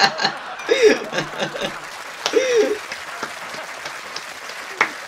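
Studio audience applauding and laughing after a joke, with a couple of short laughs standing out about a second in and again midway.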